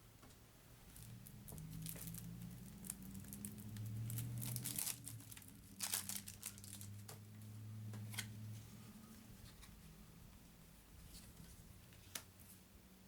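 Packaging of a deck of Uno cards being torn open and crinkled: irregular tearing and crackling that comes in bursts, heaviest in the middle, with a single sharp click near the end.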